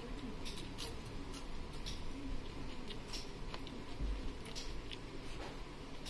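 A person eating rice by hand from a plastic plate: irregular small clicks and smacks of chewing and of fingers working the rice against the plate, with a low thud about four seconds in.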